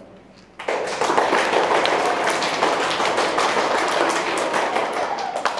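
Audience applauding: many hands clapping, starting abruptly about half a second in and tapering off near the end.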